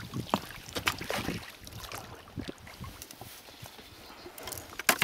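A few scattered knocks and clicks from the oars shifting in the oarlocks of an inflatable rowboat, with a sharp click near the end.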